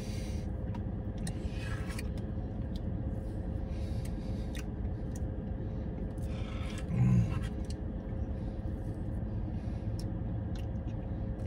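Spoon clicking and scraping in a cup of frozen dessert over the steady low hum of a car cabin, with a brief hummed voice sound about seven seconds in.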